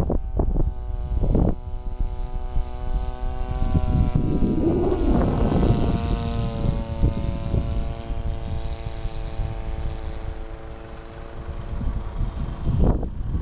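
Two-stroke 26cc engine of an RC model airplane, converted to run on nitro glow fuel, holding a steady high-pitched drone in flight. It passes close about five seconds in and then thins out as the plane flies off. Wind buffets the microphone throughout, with gusts early on.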